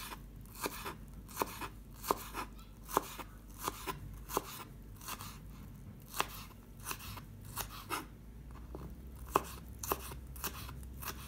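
Kitchen knife finely chopping red chilli on a plastic chopping board: a steady run of sharp taps, about one and a half a second.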